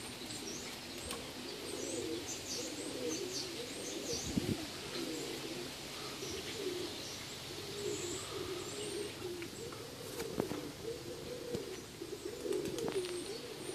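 Doves cooing in a low, wavering run of calls, with small birds chirping high above them; a dull thump about four seconds in.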